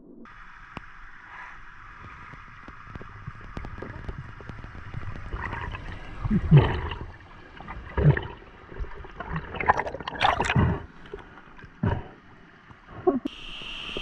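Water heard underwater: bubbling and gurgling, with several louder rushes of water and bubbles about every one to two seconds in the second half.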